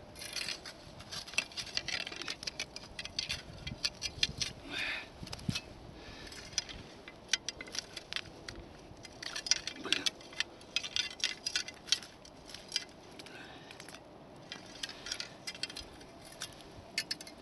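Many small, irregular clicks, crackles and rustles from fishing line, slush and clothing as line is hauled hand over hand up through a hole in the ice.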